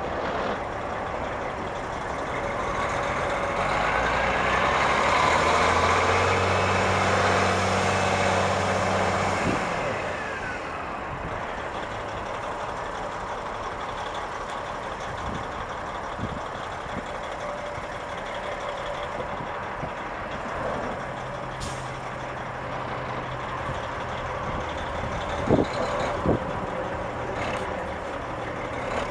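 Semi tractor's Detroit Diesel Series 60 12.7 L straight-six diesel running as the truck drives around, louder for the first ten seconds or so, then settling. Two short sharp sounds come near the end.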